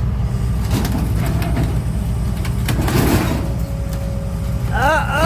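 Vehicle engine idling with a steady low rumble, a few knocks and a short rush of noise about three seconds in. Near the end come a couple of short rising-and-falling voice-like calls.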